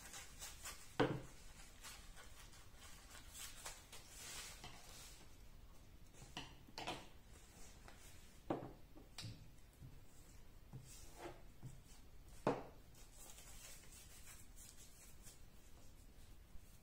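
Craft materials handled at a wooden table: paper and tissue paper rustling and rubbing, with a few sharp knocks and clicks as the tin-can bee and a glue stick are handled and set down. The loudest knocks come about a second in and again past the middle.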